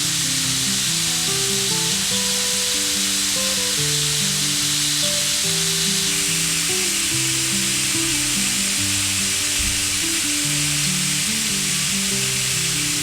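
Slow background music of held, stepping notes over a steady hiss.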